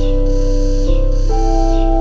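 Slow ambient sleep music: sustained, reverberant keyboard chords, piano and synth pad, that shift to new notes about once a second over a held bass, with a soft hiss in the highs that swells and fades roughly once a second.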